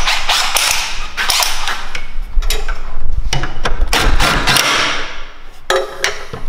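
Irregular sharp metallic knocks and clicks, mixed with bursts of hissing noise and a low rumble.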